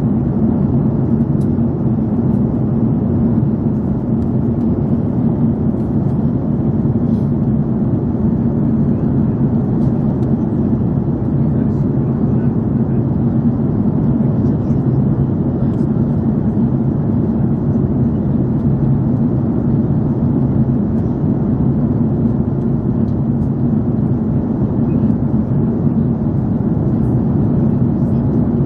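Steady cabin noise of an Airbus A330-300 in flight, heard from a window seat: an even, low drone that holds constant throughout.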